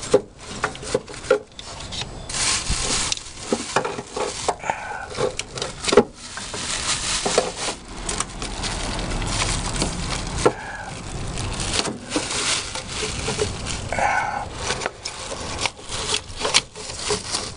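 Hands working the old engine computer (PCM) and its wiring free: plastic and harness rubbing and scraping, with many small clicks and knocks.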